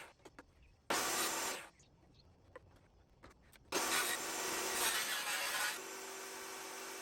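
Two short bursts of wood scraping and rubbing as boards are handled at a table saw, with a few light knocks between them. About six seconds in, a steady power-tool hum starts: the table saw running, ready to cut the groove.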